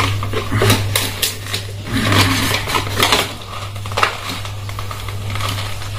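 Glued white cardboard camera box and its paper insert being pulled and torn apart by hand: rustling and crinkling with a cluster of sharp clicks in the first two seconds. A steady low hum runs underneath.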